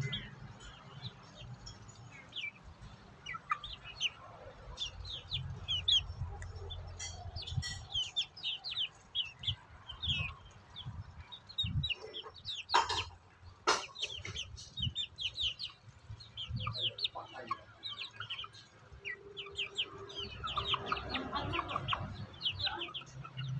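Young chickens peeping, with many short, high, falling chirps overlapping as they peck at rice. Two sharp clicks come a little past halfway.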